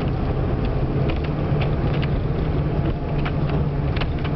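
Cabin of a moving vehicle: a steady low engine-and-road drone with scattered clicks and rattles from the cabin.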